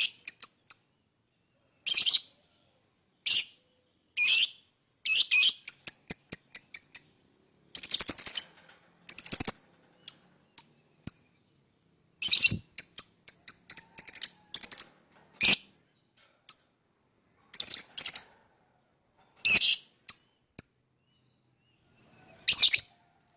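Fischer's lovebird chirping shrilly in short bursts and quick chattering runs, a burst every second or two, with dead silence between.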